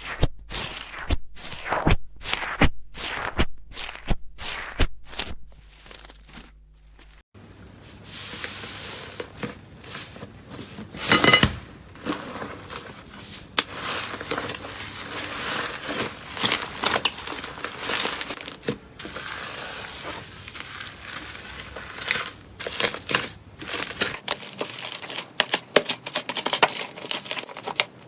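Slime being handled by hand, making sticky pops and crackles. First comes a run of sharp pops about two a second; then, after a cut, a longer stretch of crinkly, crunchy crackling.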